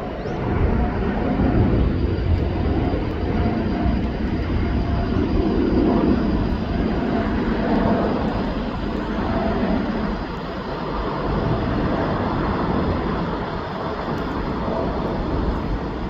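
Jet airliner engines running: a loud, steady rumble with a faint high whine, swelling a little midway.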